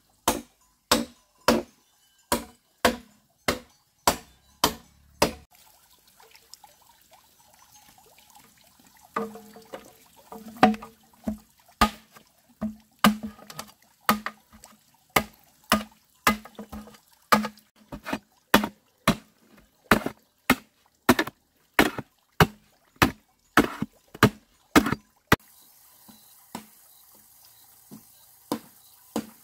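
A blade chopping wood in steady repeated strikes, about two a second. The strikes pause for a few seconds, come back faster and keep going for a long stretch, then thin out to a few scattered blows near the end.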